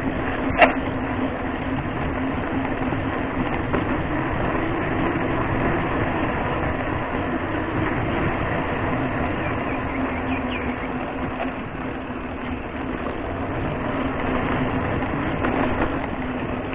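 Hardtail mountain bike rolling along a cracked concrete road, heard from a handlebar-mounted camera: steady rolling noise with a low hum, and one sharp click about half a second in.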